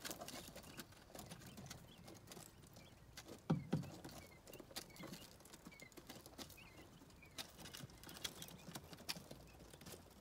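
Quail chicks pecking at a plastic feeder and scratching in wood shavings: quick irregular ticks and rustles, with a few faint short cheeps. Two dull knocks about three and a half seconds in are the loudest sounds.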